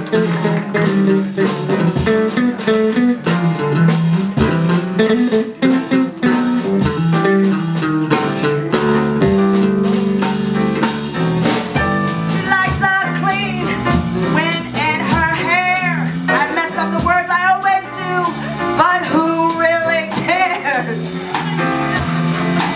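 A band plays a bluesy jazz number with guitar, bass and drums keeping a steady beat. From about halfway through, a voice sings over it with wide vibrato.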